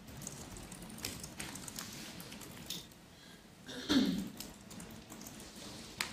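Computer keyboard typing and key clicks in short scattered taps, with a louder, lower sound about four seconds in.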